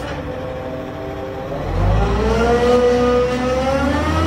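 Cat 740 articulated water truck's diesel engine revving up, its note rising steadily from about a second and a half in.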